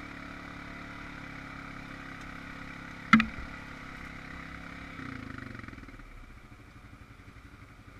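Honda Rancher 420 ATV's single-cylinder engine running steadily, with one sharp knock about three seconds in. About five seconds in the engine note falls and it runs quieter.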